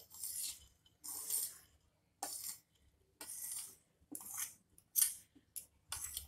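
A spoon scraping grated cauliflower off a paper plate into a glass bowl: a run of short scraping strokes, about one a second, with a few light clicks.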